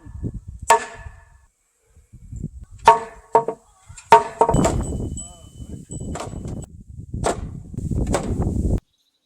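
Hand tools working timber: several sharp, ringing strikes, then a stretch of rough scraping and rasping that cuts off abruptly near the end.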